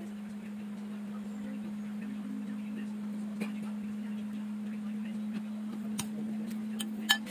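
A steady low hum, with a light click about halfway, another about six seconds in, and a sharp rattle of clicks near the end. The clicks come from a metal mesh strainer, used to squeeze calamansi over a bowl, knocking against the dish and then being set down.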